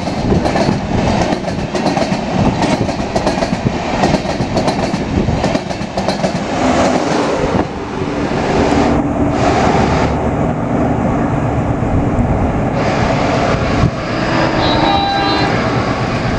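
Passenger train's LHB coaches rolling past at speed, with a rapid clatter of wheels over the rail joints. From about six seconds in, this gives way to a steadier train rumble.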